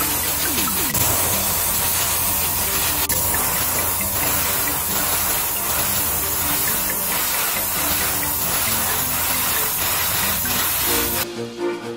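Airbrush spraying paint with a steady hiss. It cuts off suddenly about eleven seconds in, giving way to music.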